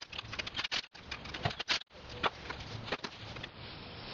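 Screws being driven into an alternator's voltage regulator with a cordless drill/driver: irregular clicks and rattles of the bit, screws and metal housing, turning quieter and steadier near the end.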